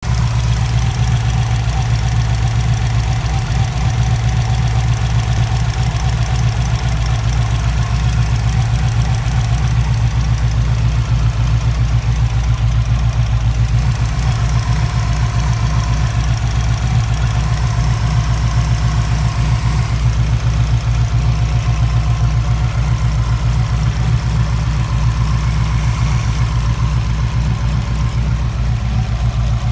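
Subaru WRX flat-four engine running at idle. The fuel pulsation from a Wanbro 400 l/h fuel pump is blamed for a misfire and an engine error.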